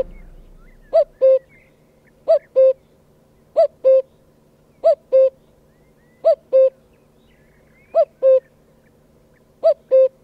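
Common cuckoo calling its two-note "cuck-oo", the second note lower than the first, seven times at roughly one-and-a-half-second intervals.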